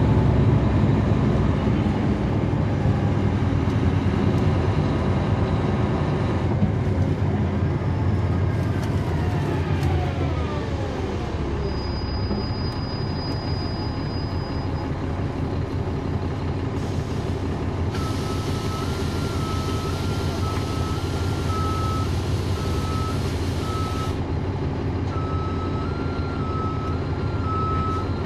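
Interior of a 2009 NABI 40-SFW transit bus with a Caterpillar C13 diesel engine and ZF Ecomat automatic transmission. The engine drone runs throughout, and early on a whine falls steadily in pitch over a few seconds. Later a loud hiss of air lasts several seconds alongside a repeating two-tone electronic beep, which sounds again briefly after the hiss stops.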